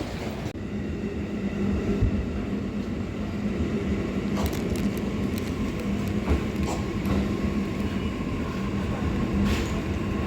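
JR East E233-3000 series electric train running along the line: a steady rumble with a low hum, and a few sharp clicks of the wheels over rail joints.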